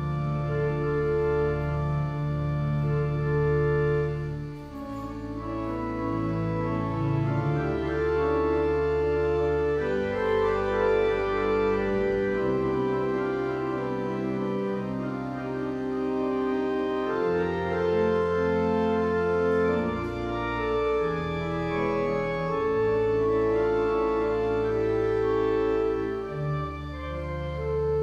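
Organ playing slow, sustained chords over a deep held bass line, the chords changing every second or two.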